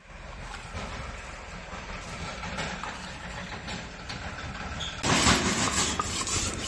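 A low steady rumble, then about five seconds in a louder rhythmic stone-on-stone grinding: a hand-held grinding stone rocked back and forth over a flat stone slab, crushing whole spices.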